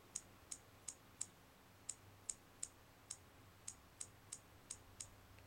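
Key-press clicks from an HTC Magic's TouchPal on-screen keyboard as a sentence is typed: about a dozen short, sharp, high clicks, roughly three a second, in three runs with brief pauses between them.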